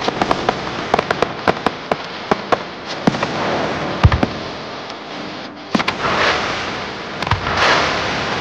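Fireworks display with ground-launched cakes and comets firing: a rapid string of sharp cracks, a deep boom about four seconds in, then a hissing rush that builds near the end.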